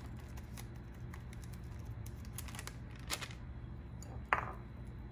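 Soft clicks and scrapes of a plastic spoon against a glass bowl and the rustle of a bag as cornstarch is poured into dish-soap slime mixture, with one sharper knock a little past four seconds.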